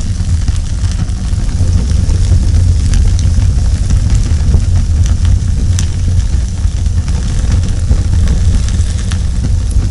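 Fire sound effect: a steady low rumble of burning flames with scattered crackles and pops.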